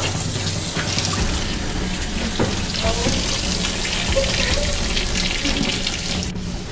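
Kitchen faucet's pull-down sprayer running, water rushing out as it is held to the mouth to drink; it shuts off suddenly shortly before the end.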